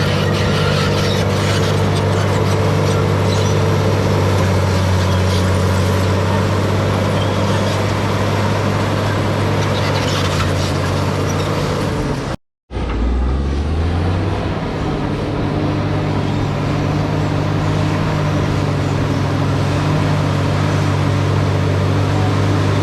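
Diesel engine of heavy earthmoving equipment running steadily under load, with some clatter over it. The sound cuts out briefly about twelve seconds in; after that the engine tone rises for a moment and then settles.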